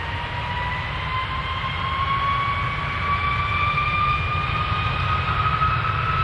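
Airplane engines at takeoff power: a whine rising slowly in pitch over a low rumble, growing gradually louder.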